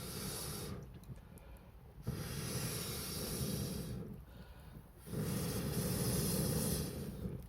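Long breathy puffs of air blown onto a bonfire, three in a row, each lasting about two seconds, with short pauses between.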